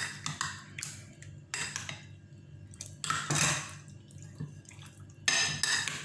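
Metal spoon clinking and scraping irregularly against a ceramic bowl as raw chicken pieces are stirred through a soy sauce and lemon juice marinade, with wet sounds from the coated meat. Longer scrapes come about three seconds in and near the end.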